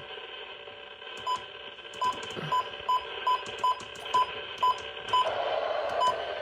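Weather radio's button beeps: about ten short, high beeps at uneven intervals as its keys are pressed to step through the weather-band channels. Under them is a steady radio hiss that turns coarser about five seconds in.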